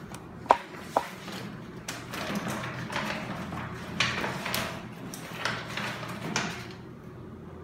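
Two sharp clicks or taps about half a second apart, then a few seconds of faint irregular rustling with small knocks that fade out near the end.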